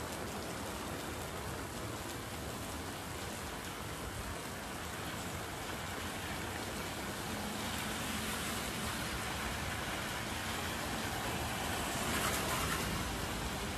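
Steady rain on a wet street, mixed with the hiss of motorbike and car tyres on the wet road. The hiss grows louder about halfway through and peaks near the end as scooters pass close by.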